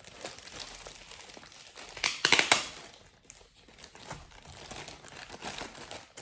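Plastic packaging crinkling as it is handled and opened, with a louder burst of crackling a little after two seconds in.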